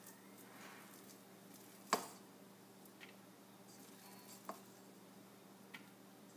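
Quiet kitchen handling sounds: one sharp clack about two seconds in, then a few lighter clicks, over a low steady hum.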